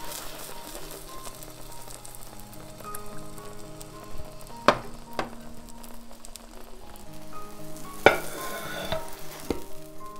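Food frying in oil in a frying pan, sizzling steadily, with a few sharp knocks of a utensil on the pan. About eight seconds in, a loud knock is followed by a brief surge of sizzling.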